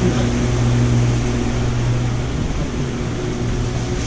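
Walk-in cold storage room's refrigeration unit running after a refrigerant recharge, now cooling again: a steady electrical hum under a rush of fan air. The hum weakens a little past halfway.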